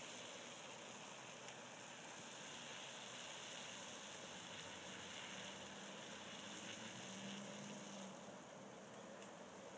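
Pot of water at a hard rolling boil over a burning Swedish torch log fire: a steady, faint hiss.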